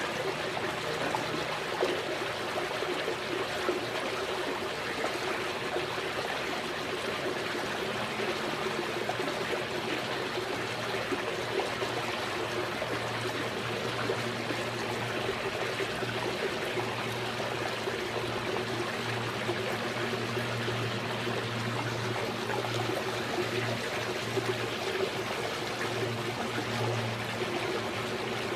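Steady running, trickling water at a swimming pool, with a low steady hum underneath.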